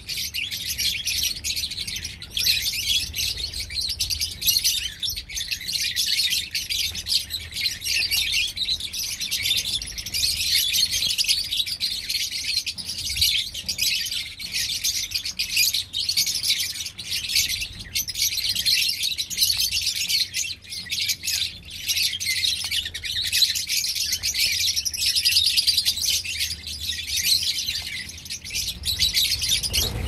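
A flock of lovebirds chirping and chattering continuously: a dense, high-pitched twittering of many birds at once, with no pauses.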